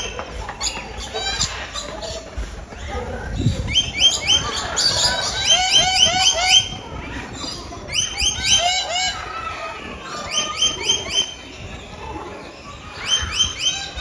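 Parrots calling: bursts of quick, repeated short chirps, about five notes a second, recurring every couple of seconds.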